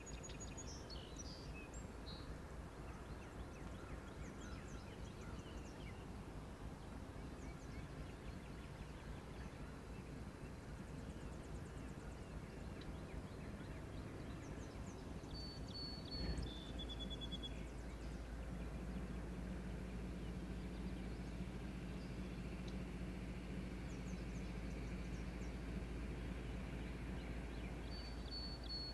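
Steady low outdoor rumble with a songbird singing a short whistled phrase three times, roughly every fourteen seconds. A little past halfway a brief knock sounds and the rumble grows slightly louder, with a steady hum.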